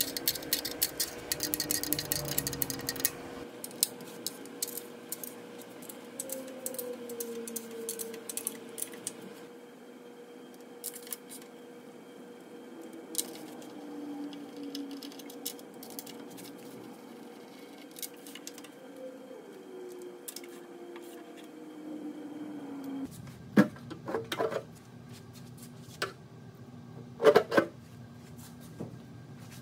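Ratchet wrench clicking in quick runs as the oil pan bolts are backed out, then only scattered clicks, with several loud metal clanks in the last few seconds.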